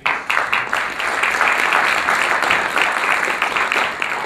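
Audience applauding, a dense patter of many hands clapping that starts suddenly and holds steady throughout.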